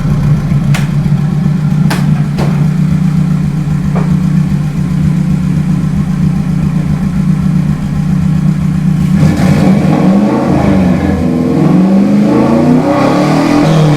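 Turbocharged car engine with four turbo whistles stuck in its exhaust, idling steadily, then revved in a series of rising and falling blips from about nine seconds in. A few sharp clicks come in the first four seconds.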